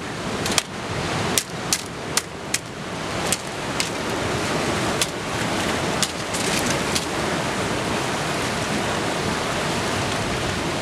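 Wooden sticks whacking the top of a boulder: a run of about a dozen sharp, separate cracks in the first seven seconds, several close together early on. Steady surf washes underneath.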